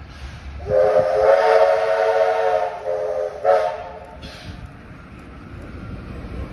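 Steam whistle of NSW 30 class tank locomotive 3001, sounding one long blast of about two and a half seconds and then a short blast. The passing locomotive and carriages are heard under it as it nears.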